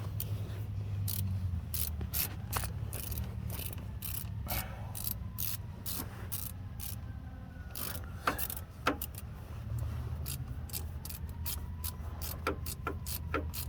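Hand ratchet clicking in irregular runs as the wheel hub's mounting bolts are tightened a little at a time, over a low steady hum. Faint siren tones glide up and down in the background in the later part.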